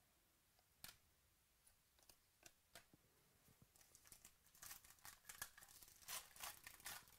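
Faint crinkling and tearing of a sealed trading-card pack's wrapper as it is torn open, a dense run of crackles in the second half. Before it come a few soft, scattered ticks of cards being handled.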